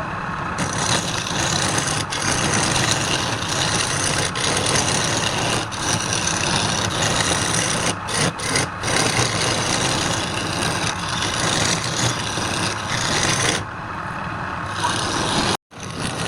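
Wood lathe spinning a wooden workpiece while a hand-held turning tool cuts into it: a continuous rough scraping of wood being shaved, over the steady hum of the lathe. The sound cuts out for a moment near the end.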